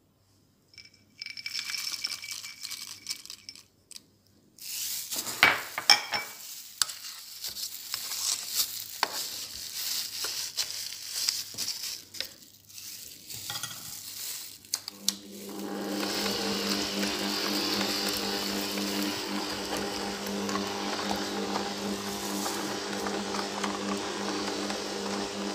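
Walnuts tipped into a stainless steel mixing bowl and the stiff oat, raisin and walnut dough stirred by hand, with rustling, scraping and clinks against the bowl. About fifteen seconds in, the stand mixer's electric motor starts and runs steadily as its beater works the dough.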